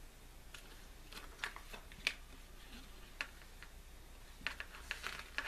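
A paper CD lyrics booklet being handled and its pages turned: faint, scattered paper rustles and light taps, a few more close together near the end.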